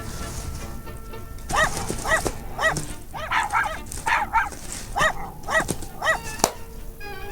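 A dog barking in a rapid string of short, yelping barks, about two a second, with a sharp click near the end.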